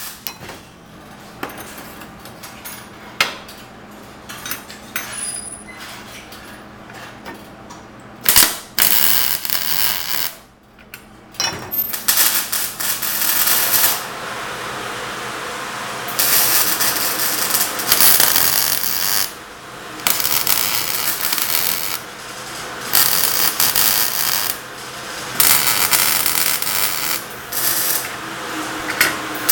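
MIG welder arc crackling and hissing in repeated bursts of one to a few seconds as steel rods are tack-welded together, with short pauses between welds. The first several seconds are quieter, with scattered metallic clicks from handling the rods.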